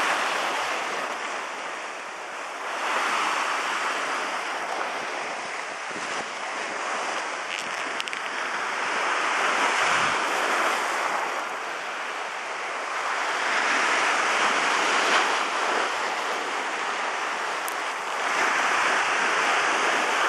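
Sea surf washing in, a steady rushing hiss that swells and eases every few seconds as waves come in.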